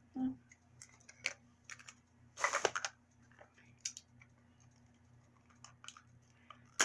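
Small plastic packaging being handled: scattered light clicks and a short crinkling rustle about two and a half seconds in.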